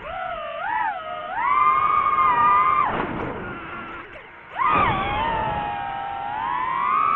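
DJI FPV drone's motors and propellers whining, the pitch rising and falling with the throttle as it manoeuvres; the whine drops away for a second or so after about three seconds, then surges back and holds high.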